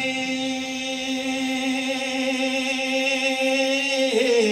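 A steady drone note held at one pitch with its overtones, the musical accompaniment of a naat recitation. A voice comes back in over it near the end.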